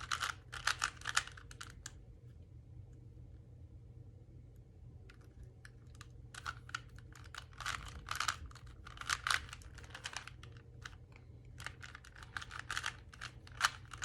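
Plastic 3x3 Rubik's Cube being turned by hand: quick runs of clacking clicks as the layers are twisted. There is a pause of a few seconds after the first burst, then the bursts come again and again.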